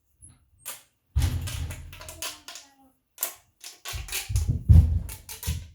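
Mini plastic pop tube fidget toy being stretched and squashed, giving a quick series of sharp pops and clicks in two bursts.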